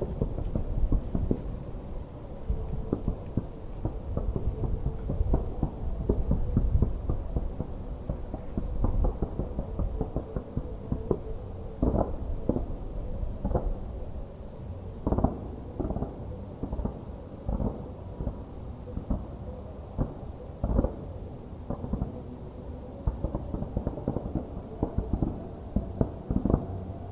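Fireworks display: a dense, rolling barrage of aerial shell bursts at first, thinning after about ten seconds into separate deep booms, roughly one a second with some in quick clusters.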